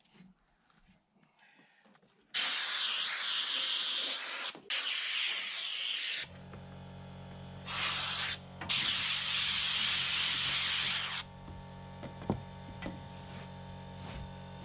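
Four loud hissing blasts of spray, each lasting one to two and a half seconds. About six seconds in, a motor starts and hums steadily underneath the later blasts.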